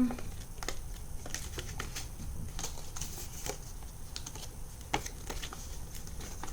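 Scattered light clicks and taps of small plastic toys and packaging being handled, with a slightly sharper tap about five seconds in.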